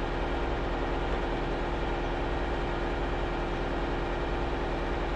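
Heavy diesel engine of an Oshkosh HET 8x8 wrecker running steadily, with a constant low hum and no change in pitch.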